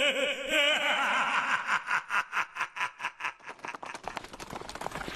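A voice laughing: a short vocal cry, then a rapid run of 'ha-ha' pulses, about five a second, that fade away by about four seconds in.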